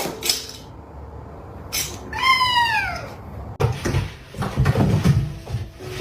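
A cat meows once, a drawn-out call that rises and then falls in pitch. In the last couple of seconds there are scuffling and knocking noises.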